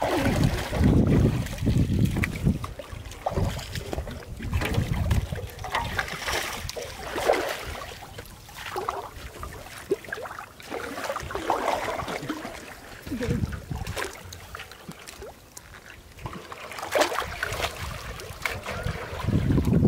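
Irregular splashing and sloshing of shallow muddy water, with scattered knocks and low rumbles.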